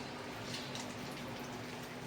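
Salted bitter gourds being squeezed by hand, their water squelching and dripping softly, over a steady low hum.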